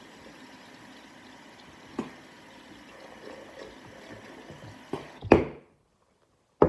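Tap water running steadily into a bathroom sink, with a light knock about two seconds in and a louder clatter a little after five seconds. The sound then drops out completely until a sudden loud hit at the very end.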